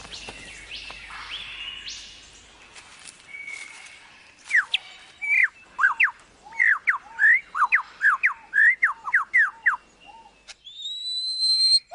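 Superb lyrebird singing: fainter rising whistles at first, then a loud, rapid run of clear whistled notes sweeping up and down, about three a second, ending in a higher drawn-out rising whistle.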